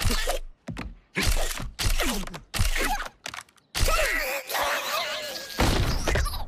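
Cartoon slapstick sound effects: the raccoon characters' wordless grunts and squeals come in short separate bursts, mixed with thumps and a crash.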